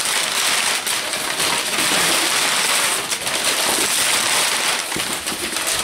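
Crumpled brown kraft packing paper crinkling and rustling continuously as it is pulled in handfuls out of a cardboard box.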